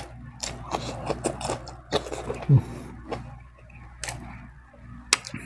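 Eating sounds: wet chewing with sharp lip smacks and mouth clicks at an irregular pace. There is one short, low throat sound about two and a half seconds in, the loudest moment.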